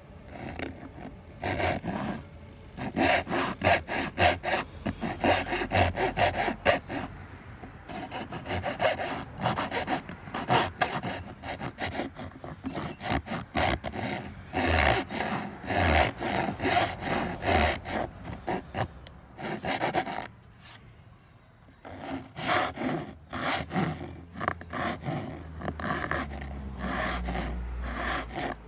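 Flat metal file rasping back and forth in a narrow slot sawn into a thin wooden board, in quick repeated strokes, finishing the sawn slot smooth. A short pause in the strokes comes about three-quarters of the way through.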